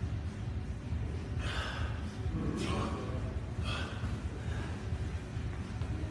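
A man breathing hard and gasping in about three short, sharp breaths while straining to hold a loaded barbell overhead in a deep squat, over a steady low hum.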